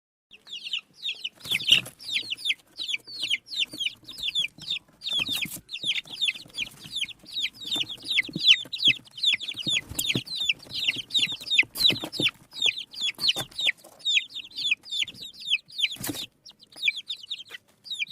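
A flock of eight-day-old poultry chicks peeping: many short, falling, high chirps overlapping without pause. A few sharp knocks come through among them.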